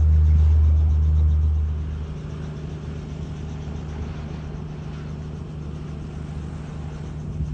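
Piper PA-28 light aircraft's piston engine running with a steady drone. A heavy low rumble for about the first two seconds then drops away, leaving the quieter drone of the engine.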